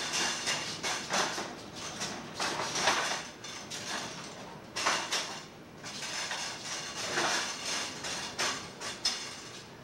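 Irregular knocks and bumps of a hand-held camcorder being moved about, over a steady hiss.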